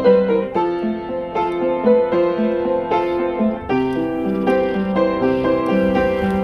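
Background piano music, a gentle melody of struck notes.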